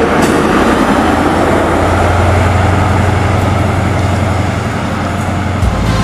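GWR Class 43 (InterCity 125) power car 43092 passing close by as the high-speed train pulls away: a steady low diesel drone over the rumble of wheels on the rails.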